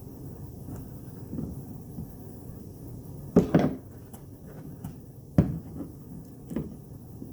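A few sharp knocks and clunks of objects being handled and set down: a loud double knock about halfway, then two or three lighter ones, over a low steady background.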